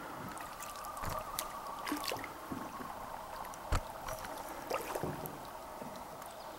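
Canoe being paddled: water trickling and splashing off the paddle with each stroke, and a few sharp knocks of the paddle against the canoe, the loudest about halfway through.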